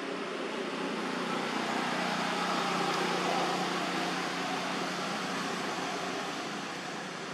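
Steady engine hum of a passing motor vehicle, swelling to its loudest about three seconds in and then fading.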